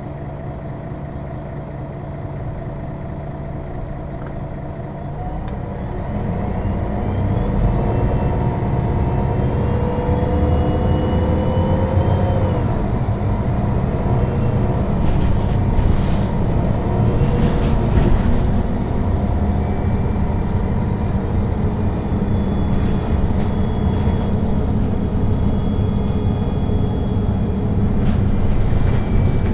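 MAN NL 263 low-floor city bus, heard on board: its diesel engine idles steadily, then about five seconds in it gets louder as the bus pulls away. The engine pitch climbs, drops at a gear change, climbs again, then settles into steady running.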